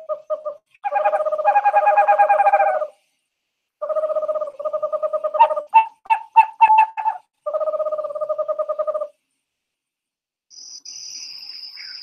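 Owl hooting: a run of long quavering hoots, with a few shorter notes about halfway through.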